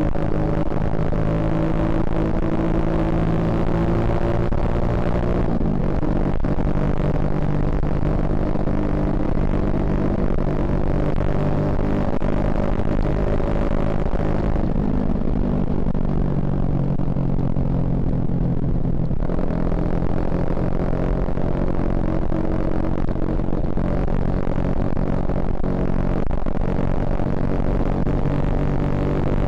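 Suzuki Shogun Axelo R's single-cylinder four-stroke engine running under way, its note rising and falling with the throttle. The pitch drops about five seconds in, and the engine runs lower and duller for a few seconds past the middle before picking up again.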